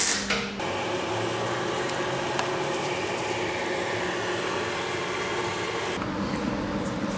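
A welding arc's crackle cuts off within the first half second. It is followed by a steady mechanical hum with a few faint ticks, which shifts in tone about six seconds in.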